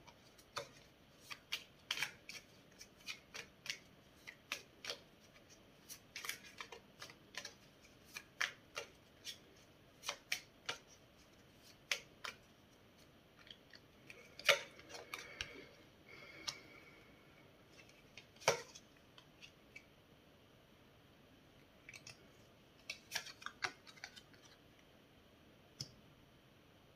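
Tarot cards being handled and laid down on a wooden table: a run of light, irregular clicks and taps, with a short lull about three-quarters of the way through.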